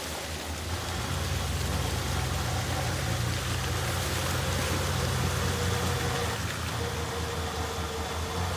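A vehicle engine idling steadily over an even hiss, with a thin steady whine joining about four seconds in.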